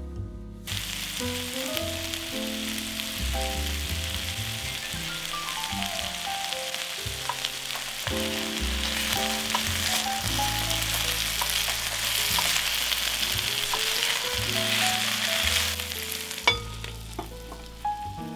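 Diced potatoes, carrots and broccoli sizzling in hot oil in a frying pan while being stirred with a wooden utensil. The sizzle starts just after the broccoli goes in and cuts off with a knock about sixteen seconds in, as the glass lid goes on.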